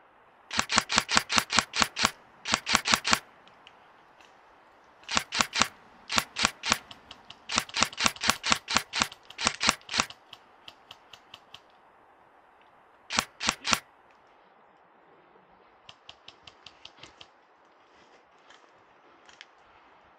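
Airsoft guns firing in rapid bursts of sharp cracks, about six to eight shots a second. Several loud close bursts fill the first half, one more comes about two-thirds through, and fainter bursts from guns further off come near the end.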